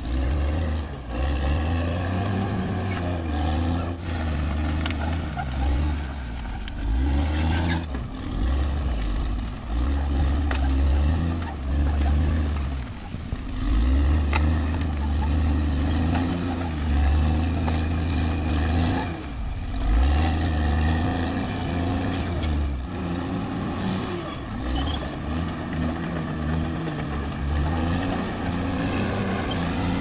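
Caterpillar D6R XL crawler bulldozer's diesel engine working under load as it pushes brush and soil, its pitch rising and falling with the work. It eases off briefly twice, about 13 and 20 seconds in.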